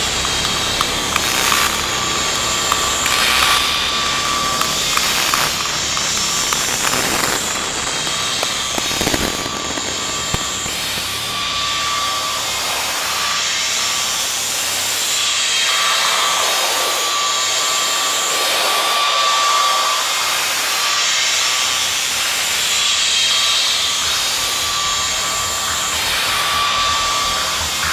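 Noisy electronic soundtrack: a dense, steady hiss-like drone with a short high tone that recurs about every two and a half seconds, like a looped pattern.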